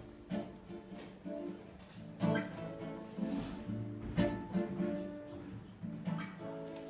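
Acoustic guitar playing an instrumental passage of picked chords, with two harder strummed chords about two and four seconds in.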